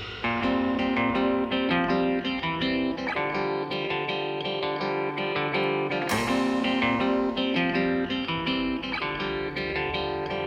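Background music: a quiet plucked guitar passage playing a run of picked notes.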